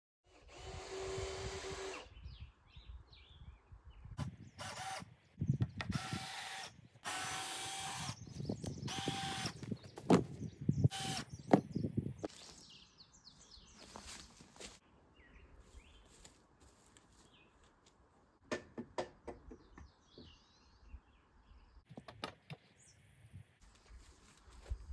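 Cordless power drill run in several short bursts, driving screws into wooden lumber, with sharp knocks and clicks of wood being handled between runs.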